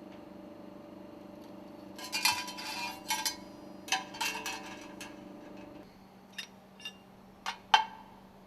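Metal stuffing-box ring segments clinking against each other and the work table as they are dismantled and stacked. A cluster of clinks comes about two to five seconds in, then a few single clicks, the loudest near the end, over a faint steady hum.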